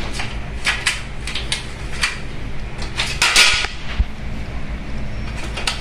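Small plastic and aluminum sliding-door parts clicking and clinking as a roller guide is handled and fitted onto its aluminum track, with a louder scraping rustle about three seconds in and a single knock just after.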